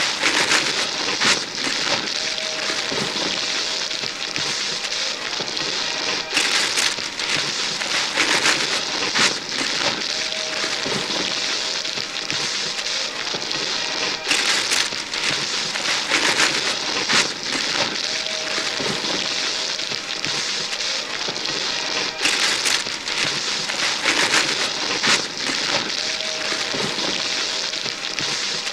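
Wrapping paper being torn off gift boxes by several pairs of hands: continuous ripping and crumpling of paper with frequent louder tears. The same stretch of about eight seconds repeats over and over.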